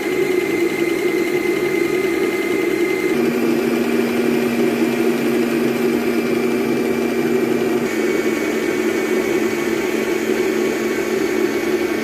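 Electric stand mixer with a wire whisk beating fresh cream to make butter: a steady motor whine whose pitch steps up twice, about three seconds in and again near eight seconds, as the speed is raised. It stops abruptly at the end.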